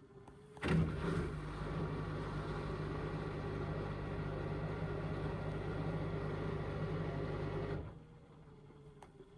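Indesit washing machine's motor tumbling the drum during the rinse, a steady running hum that starts under a second in and stops after about seven seconds, the usual tumble-and-pause rhythm of a wash cycle. A faint steady tone is left when the motor stops.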